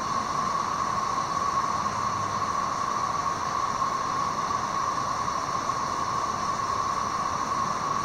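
A chorus of tens of thousands of periodical cicadas in the treetops: a dense, steady drone that does not let up.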